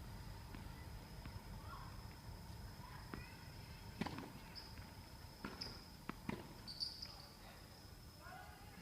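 Tennis ball knocks: one sharp hit about four seconds in, then a few lighter bounces and hits over the next three seconds, under a steady thin high whine.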